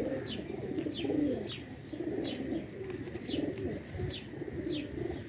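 Domestic pigeons cooing, low and wavering, with a run of short, high, falling chirps about twice a second above them.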